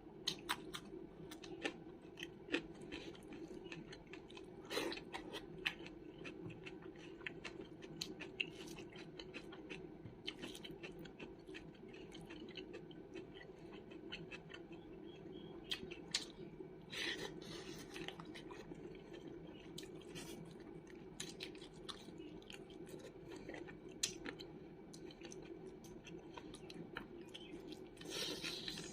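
Close-miked chewing and mouth sounds of a person eating a meal of curry and rice, many short wet clicks over a steady murmur, with a few longer, louder bursts about halfway through and near the end.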